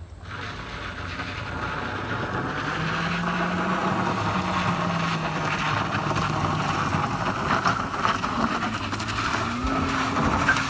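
A vehicle engine revving hard under load on a rough dirt road, its pitch rising and falling, with dense tyre and road noise over it. It starts abruptly and builds over the first two seconds.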